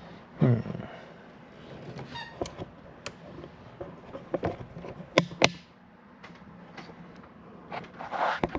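A handful of sharp clicks and knocks from handling, with a brief low voice sound about half a second in.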